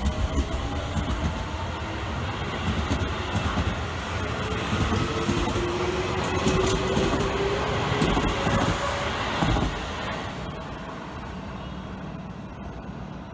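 Seibu 20000 series electric train accelerating away from the platform, its inverter-driven traction motors whining in a rising pitch over the rumble and clicking of the wheels on the rails. The sound drops off about ten seconds in as the last car passes.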